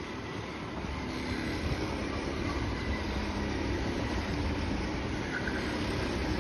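Several go-kart engines running at once as a pack of karts laps the track, a steady mixed drone with faint engine notes coming and going as karts pass.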